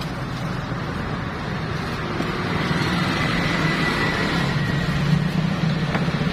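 A motor engine running steadily close by with a pulsing low hum, getting louder about two and a half seconds in. There is one short knock near the end.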